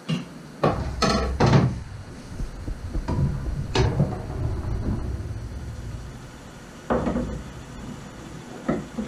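Tools being handled against wood: a metal square and rule knocking and clattering on the wooden boat parts. There are several sharp taps in the first two seconds, another near four seconds and two more near the end, with a dull rumble of handling beneath the first half.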